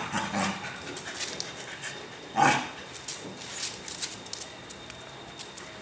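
Cocker spaniel puppy gives one short bark about two and a half seconds in, amid light scuffling and claw clicks on concrete as it rolls and gets to its feet.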